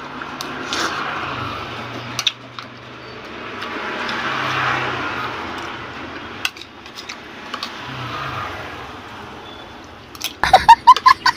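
A person eating close to the microphone: chewing and mouth noises with scattered light clicks of a spoon against a plate. About ten seconds in, a run of loud, sharp, pitched sounds begins.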